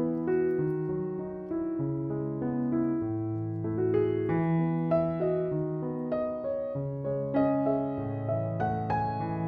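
Background piano music: a melody of single notes over low notes held about a second each.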